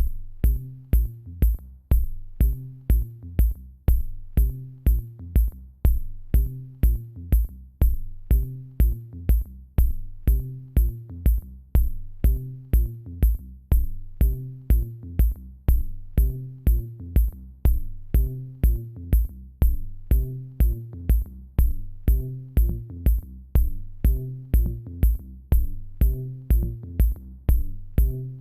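Electronic instrumental music with a steady drum-machine beat, about two strikes a second, each with a crisp high tick, over a low bass line and a short repeating melody.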